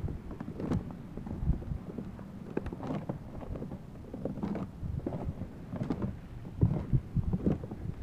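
Wind rumbling on the microphone, with scattered small clicks and knocks.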